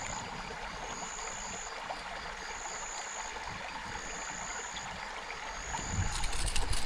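Night creek-side ambience: a high-pitched call repeating about every second and a half over a steady hiss of flowing water, with louder rustling and a few sharp clicks near the end.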